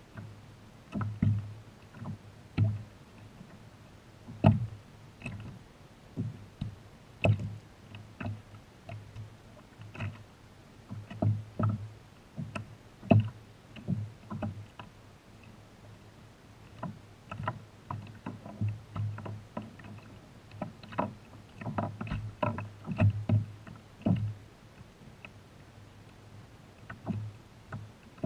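Small waves slapping against a kayak's hull as it rocks on the sea, an irregular run of short knocks, sometimes several in quick succession.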